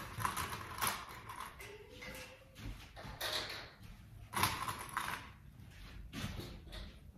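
Steam iron pressing fabric: a series of short steam hisses at irregular intervals, mixed with clunks and rustling as the iron and fabric are handled.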